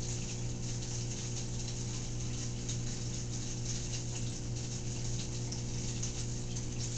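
A steady low electrical hum, with fast, irregular faint clicking over it.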